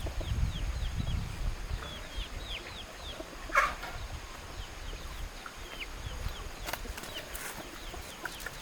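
Chickens calling: many short, high, falling peeps in a loose scatter, with a single sharp click about three and a half seconds in.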